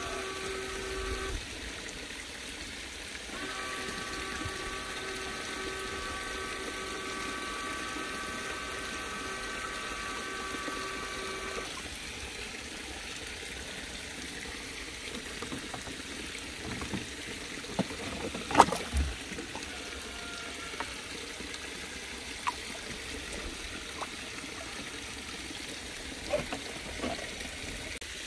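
Water trickling and gurgling through and around a homemade bottle-and-hose venturi dredge nozzle in a shallow stream, under a steady whine that breaks off briefly near the start and stops about twelve seconds in. In the second half, scattered clacks of stones, with one loud knock about two-thirds of the way in.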